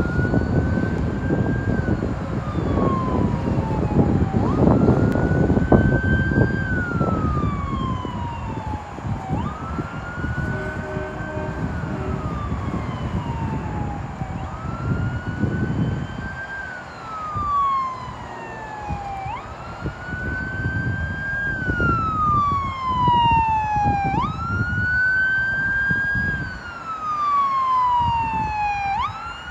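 Ambulance siren sounding a wail. Each cycle rises sharply, climbs to a peak, then falls slowly, repeating about every five seconds. It grows louder over the last few cycles as the ambulance comes closer, over a low rumble.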